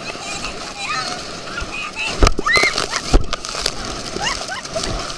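People riding a towed inflatable tube shrieking and squealing in short rising and falling cries over a steady rush of water and wind. Two hard thumps land about two and three seconds in.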